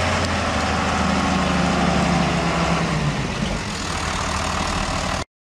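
Farm tractor's diesel engine running steadily, cutting off abruptly near the end.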